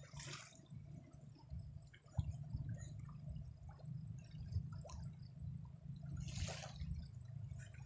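Water sloshing and dripping at the edge of a reservoir, over a steady low rumble, with two short splashy hisses: one at the start and one about six and a half seconds in.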